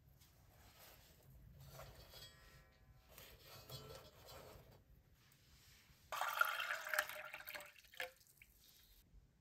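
Water poured into a brass tumbler for under two seconds, about six seconds in, ending with a light knock. Before it come faint handling sounds as fried bhature are set down on a brass plate.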